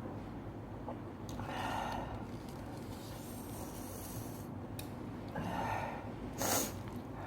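A person sniffing and snorting while eating very spicy noodles: two breathy sniffs, then a short, sharp snort near the end.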